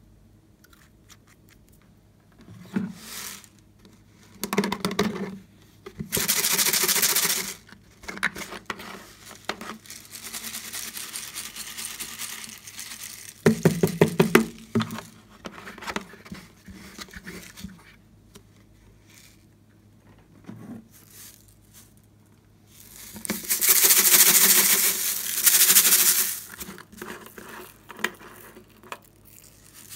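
Sequins and small beads being poured from a plastic toy case into a glass dish of slime. There are several hissing pours, a quick rattling run of clicks about halfway through, and scattered clicks and knocks of the plastic case being handled.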